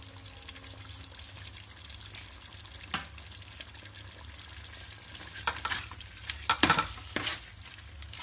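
Spiced chicken gravy sizzling in an aluminium pot, with a steady low hum underneath. A steel ladle knocks once about three seconds in, then stirs the chicken from a little past halfway, scraping and clanking against the pot.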